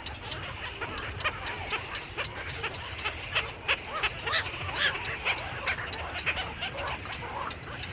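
A flock of birds calling all at once: a dense, continuous chatter of short chirps and squawks overlapping each other.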